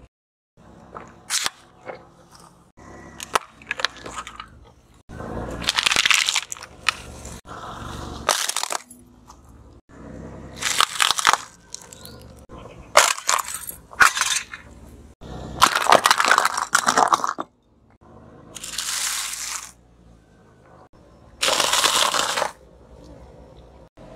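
A car tyre rolling over and crushing food and wrapped snacks, such as crispy wafer bars in plastic wrappers, on asphalt. A string of sharp snaps and several crunching, crackling stretches of a second or two, one item after another.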